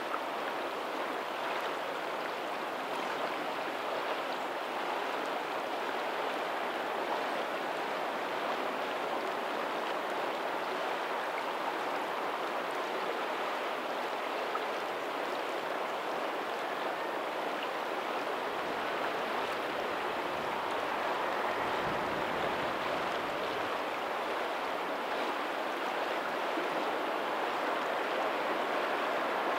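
Steady rush of a lagoon's tidal outflow running over a pebbly shore, with faint ocean surf behind it. A low rumble joins in a little past the middle.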